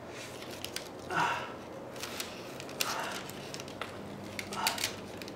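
A wooden stick scraping soft, half-melted polyethylene out of a metal can onto paper in a mould: three short scraping, crinkling sounds spaced a second and a half or so apart, over a low steady hum.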